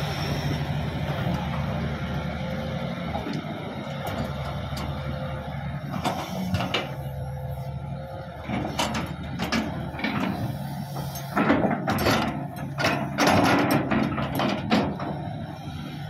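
Diesel engine of a Hitachi 200 crawler excavator running steadily. The steel tracks and undercarriage clank and squeak as the machine moves through mud, with the clanks starting about a third of the way in and bunching up loudest toward the end.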